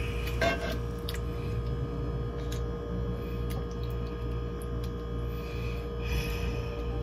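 Serving spoon spreading thick lasagna meat sauce in a glass baking dish: soft squishy scraping with several light clicks of the spoon against the dish, over a steady electrical hum.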